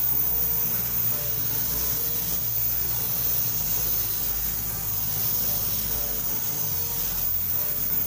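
Gravity-feed paint spray gun hissing steadily as it sprays a motorcycle gas tank, under background music with a deep bass line.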